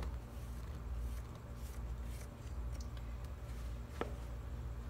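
Faint rustling and soft taps as flour is poured into a stainless steel mixing bowl, with one sharper click about four seconds in, over a low steady hum.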